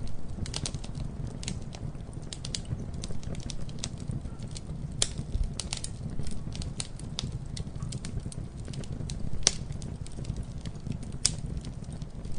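Campfire crackling: irregular snaps and pops of burning wood over a low steady rumble, with a few louder pops about five, nine and a half and eleven seconds in.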